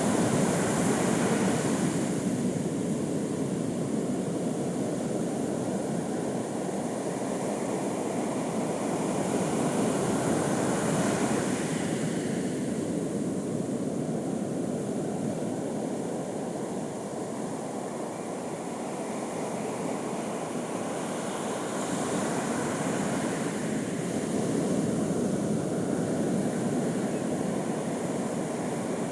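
Sea surf washing onto a beach: a continuous rush of breaking waves that swells louder with each break, roughly every ten to twelve seconds.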